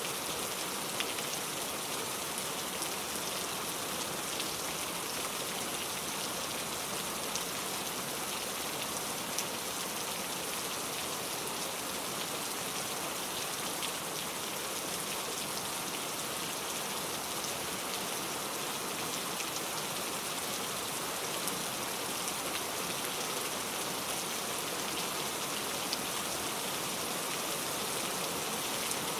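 Heavy rain falling steadily: a dense hiss of drops with small, sharp drop ticks scattered through it.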